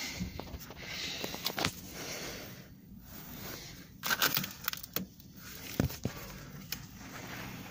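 Irregular crunching and rustling with scattered sharp clicks and knocks, loudest about four seconds in.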